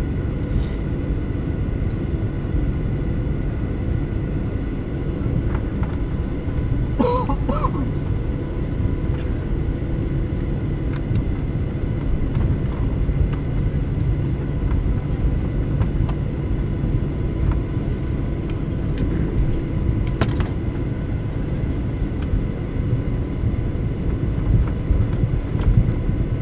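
Cabin noise of a Boeing 737-900 on the ground after landing: a steady low rumble with a steady whine, broken about seven seconds in by a short wavering tone and later by a brief click.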